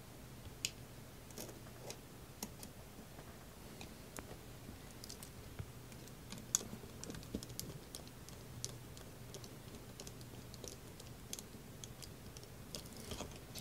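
Faint, scattered small clicks and ticks of a precision screwdriver and needle-nose pliers turning a small screw into a nut inside a power-supply enclosure, over a faint steady low hum.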